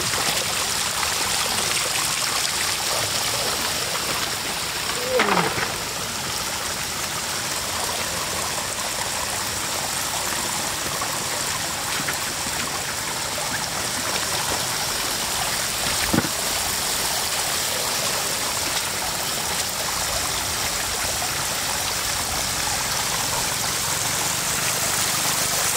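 Shallow floodwater running steadily over a broken road edge and through muddy ground, a continuous rushing and trickling. A short gliding sound comes about five seconds in, and a single sharp knock about two-thirds of the way through.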